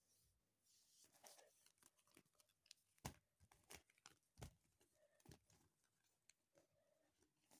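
Faint crinkling and rustling of deflated Nabaiji PVC swimming armbands being handled, with a few light knocks, the loudest about three seconds in and again about four and a half seconds in.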